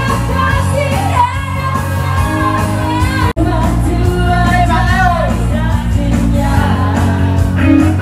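Live band music: a singer with a wavering melody into a microphone, backed by electronic keyboard and hand drums with a steady beat. The sound breaks off for an instant about three seconds in.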